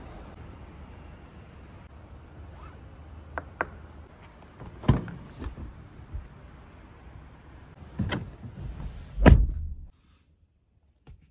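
Clicks and knocks from a Jeep Compass's doors and fittings being handled over a low steady hum, ending in a heavy door thunk about nine seconds in; the sound cuts off suddenly just after.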